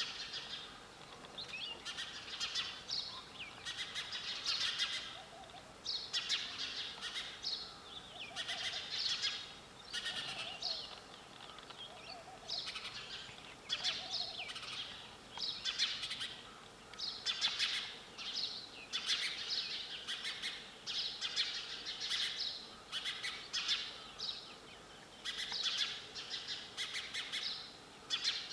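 Sparrows chirping repeatedly, in quick clusters of short high chirps that come about once a second.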